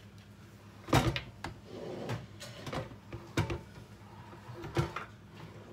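Knocks and clunks of a Mr D's thermal cooker being opened and its metal inner pot handled, about half a dozen sharp knocks with the loudest about a second in.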